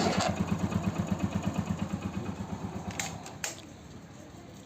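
Hero Passion Pro's single-cylinder four-stroke engine idling with an even, rapid pulse. About three seconds in it is switched off and dies away, with a couple of sharp clicks.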